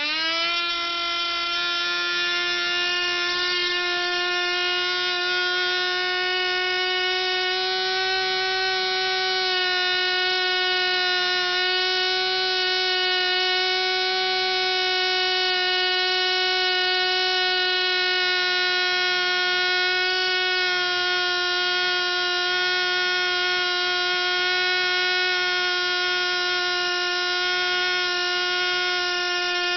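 Picco 12 Turbo ABC three-port glow-fuel two-stroke model engine running at high speed, a loud, high-pitched steady whine. Its pitch climbs at the very start as it picks up speed, then holds nearly steady.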